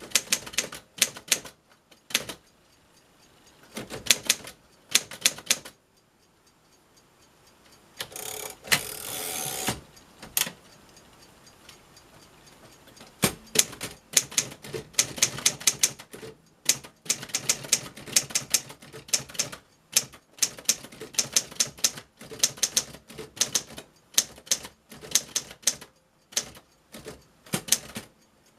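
Keys of a 1946 Underwood Standard manual typewriter being struck in quick runs of sharp clacks, the typebars hitting the platen, with short pauses between runs. About a third of the way in there is a longer rasping sound lasting about two seconds.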